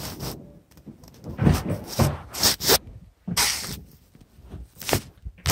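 Handling noises: irregular rustling and brushing in several short bursts, with a sharp knock near the end.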